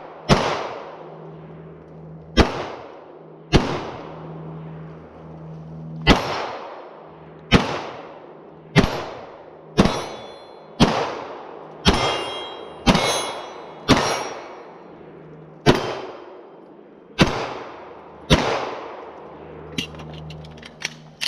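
A steady string of about fourteen gunshots, one every second or so, fired at steel targets, each shot trailing off in a ringing, echoing tail.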